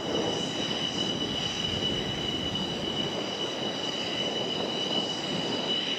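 JF-17 Thunder fighter's single RD-93 turbofan jet engine in flight: a steady jet roar with a high, even whine held over it.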